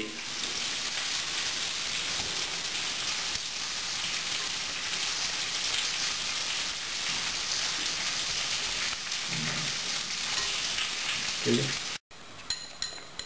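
Steady sizzling hiss of guanciale frying in its own fat, under the soft stirring of a whisk beating egg yolks and pecorino in a glass bowl. Near the end the sound drops out for a moment, then the metal whisk clinks against the glass bowl several times.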